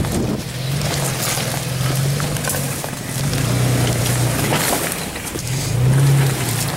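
Lifted Toyota Tacoma's engine working under load as the truck crawls over rocks, its revs swelling and easing several times. Scattered sharp knocks and crunches of rock under the tyres.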